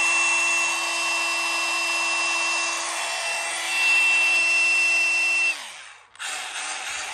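Milwaukee M18 FUEL 2912-20 brushless 1-inch SDS Plus cordless rotary hammer running free with no bit load, switched to drill mode. It gives a steady motor whine for about five and a half seconds, then winds down as the trigger is released, and runs again briefly near the end.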